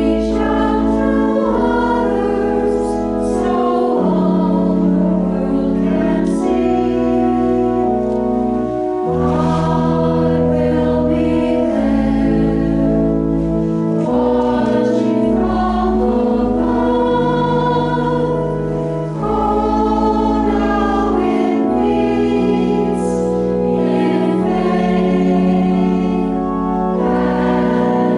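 Voices singing a hymn with organ accompaniment: slow, held chords that change every second or two over sustained low bass notes.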